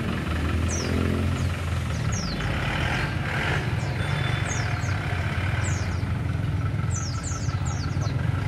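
Isuzu Panther SUV engine running at low revs through an aftermarket exhaust, a steady deep rumble as the vehicle creeps forward. Short high chirps sound now and then over it.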